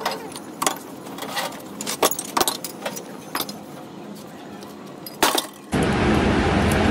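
Metal parts and tools clinking and knocking at irregular moments in a rim-making shop, then a loud machine starts up suddenly near the end and runs steadily.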